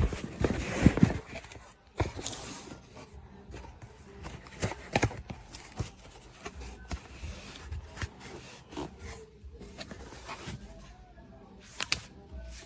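Packaging being opened and handled: rustling and scraping, loudest in the first second or so, then scattered light clicks and knocks.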